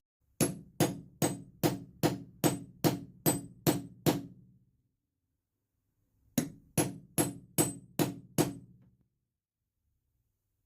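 Hammer or mallet striking a hole punch through a wetted leather shoe sole: a run of about ten evenly spaced blows, roughly two and a half a second, then after a pause a second run of six.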